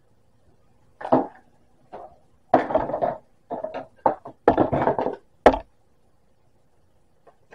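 A wooden spatula and a small metal mesh strainer knocking and scraping over a frying pan, as strained lemon pulp is worked through the mesh. There are about eight irregular knocks and short scrapes, the last one the sharpest.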